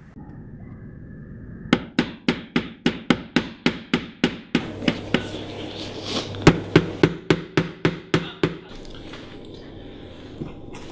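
Hammer driving nails into a wooden board: two runs of quick, even blows, about three a second, starting about two seconds in, with a short break about halfway, and stopping near the end.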